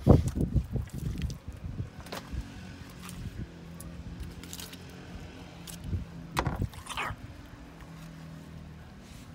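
Gutting a cod with a knife on a cutting board: scattered sharp knocks and scrapes of the blade and the fish on the board. Low rumbling buffets in the first second or so, and a steady low hum from a little after three seconds in.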